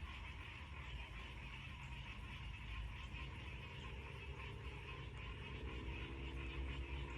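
Frogs calling steadily around the pond, faint, with low wind rumble on the microphone. A low steady hum comes in about five seconds in.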